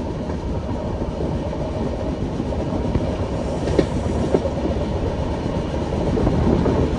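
Passenger train running at speed, heard from a window seat in the coach: a steady rumble of wheels on rails, with a few sharper clicks near the middle as the wheels cross rail joints.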